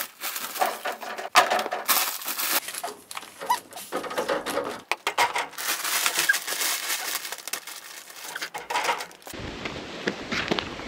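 Plastic sacks and containers of old, hardened building supplies crinkling, scraping and knocking as they are lifted and shifted. About nine seconds in this gives way to footsteps on a dirt path.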